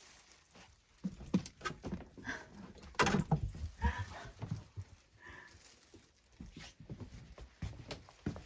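A cat giving a few short, faint calls, among scattered knocks, clicks and rustles of things being handled.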